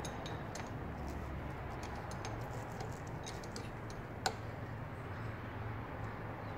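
Light clicks and taps of hands handling parts at a motorcycle's right handlebar switch housing and brake-lever mount, with one sharper click a little past the middle, over a steady low background hum.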